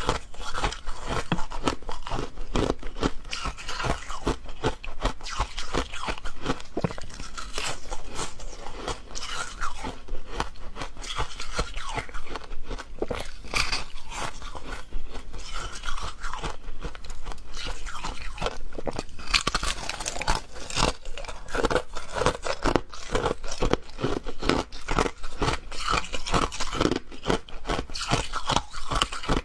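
Hard frozen ice being bitten and chewed: a dense, continuous run of sharp crunches and cracks as the brittle block breaks between the teeth.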